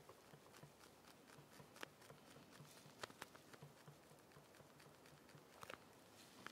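Near silence, broken by a few faint sharp clicks and taps and a soft low pulsing about four times a second.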